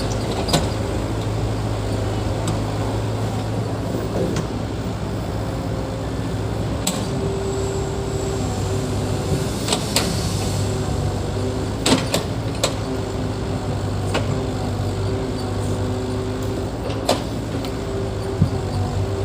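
Diesel engine of heavy earthmoving machinery running steadily, with sharp knocks every few seconds.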